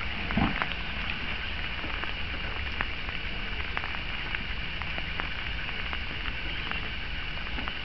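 Steady outdoor background hiss with scattered faint crackling ticks, and one brief low thud about half a second in.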